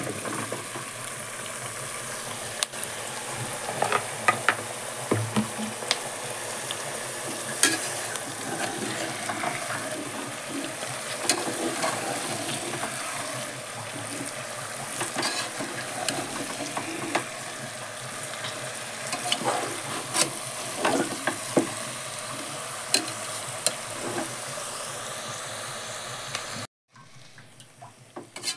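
Potato wedges frying in hot oil with onions and spices in a pressure cooker, sizzling steadily. A slotted metal spoon stirring them gives frequent clinks and scrapes against the pot. The sound cuts off suddenly near the end.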